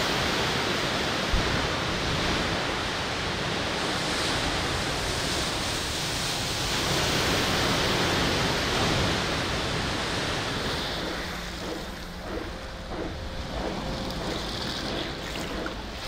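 Churning water in a large artificial wave flume, driven by a piston waveboard. It makes a steady rushing and splashing that swells around the middle and eases off toward the end.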